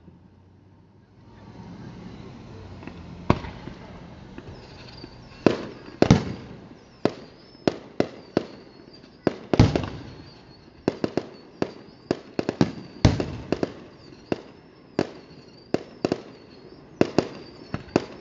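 Aerial fireworks shells bursting overhead: one sharp bang about three seconds in, then a quick run of bangs, some echoing, coming one or two a second from about halfway.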